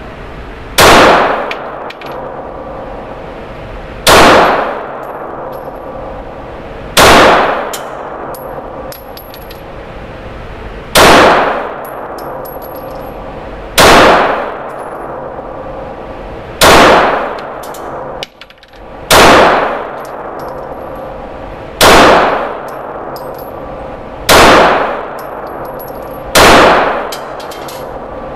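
Glock G19 9mm pistol fired ten times in slow, aimed fire, one shot every three seconds or so, each report echoing and dying away in the indoor range.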